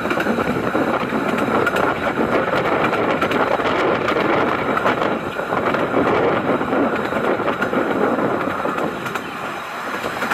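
15-inch-gauge railway carriage running along the track, heard from aboard: a steady rumble and rattle of wheels on rails.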